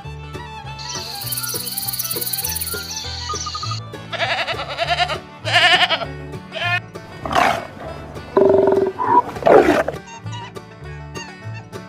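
A series of animal calls, several separate cries some of which fall in pitch, over light children's background music. A high steady buzzing with regular ticks comes first, about a second in.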